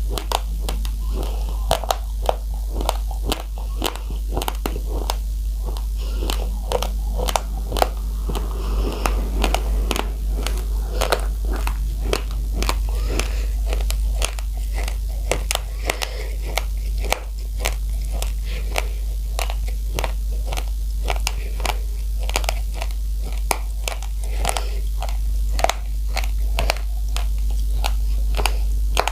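Close-miked chewing of raw, uncooked rice grains: sharp, crackling crunches, several a second, throughout, over a steady low hum.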